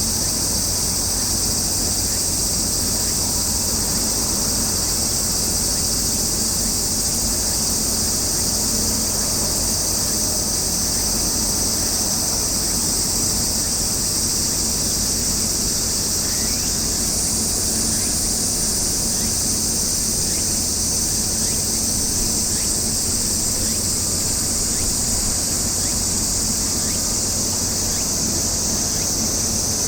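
A steady, high-pitched chorus of insects shrilling without a break, with a low steady hum underneath.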